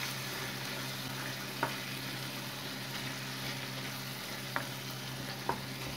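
Minced meat, onion and tomato sauce sizzling in a non-stick frying pan as a wooden spoon stirs it, with three short knocks of the spoon against the pan.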